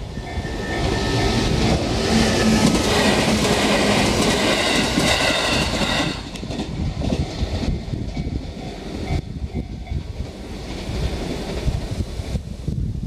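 A train running past a level crossing, its wheels clattering over the rails. It is loudest in the first six seconds, then drops to a lower rumble.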